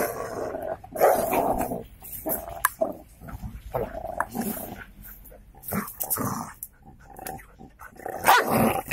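A dog growling in irregular bursts while play-fighting over a woven plastic sack, with the sack rustling and crackling against the paving.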